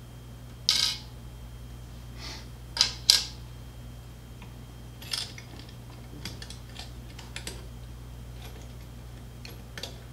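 Handling noises as a metal-bodied capacitive bed-leveling sensor and its cable are worked into a 3D-printed mount: a few short scrapes and clicks in the first few seconds, the loudest about three seconds in, then light scattered ticks.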